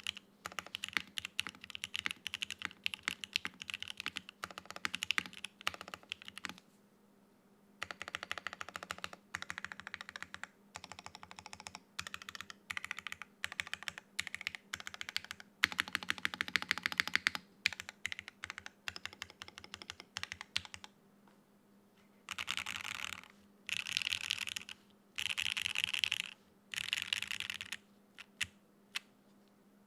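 Geonworks Frog Mini mechanical keyboard with lubed Gateron North Pole linear switches on an aluminium plate with no foam, and GMK keycaps, being typed on in runs of keystrokes. Near the end come four bursts of very rapid, continuous key presses about a second each, then a few single clicks.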